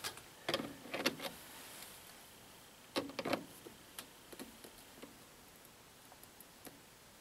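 Light clicks and scrapes of a hand tool tightening a wing nut on a deep-cycle battery bank's terminal, in a few short clusters about a second in and about three seconds in, then fainter scattered ticks.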